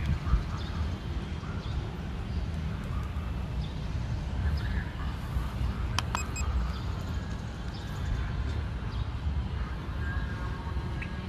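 Outdoor background noise made up of a low, fluctuating rumble, with one sharp click about six seconds in.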